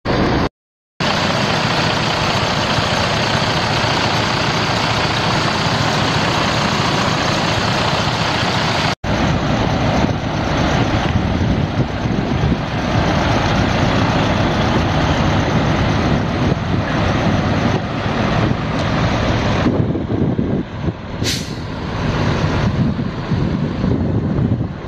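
2014 Freightliner Cascadia semi truck's Detroit Diesel DD15 six-cylinder diesel running, a loud steady noise. The sound cuts out briefly twice, just after the start and about nine seconds in, and a short sharp hiss comes about 21 seconds in.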